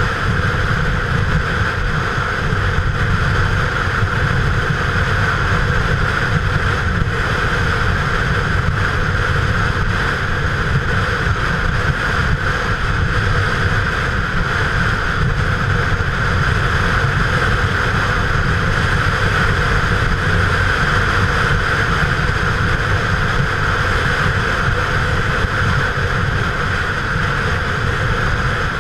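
Motorcycle riding steadily at cruising speed: a steady rush of wind over the helmet-mounted camera's microphone, with the engine running underneath.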